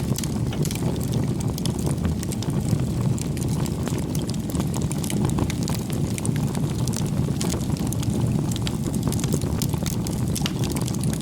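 Campfire burning with irregular small crackles and pops, over a steady low rumble of wind on the microphone.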